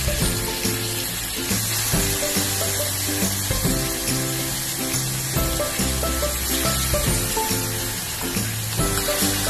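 Chicken legs sizzling as they fry in hot melted margarine in a stainless steel pan, a steady hiss, under background music with held bass notes.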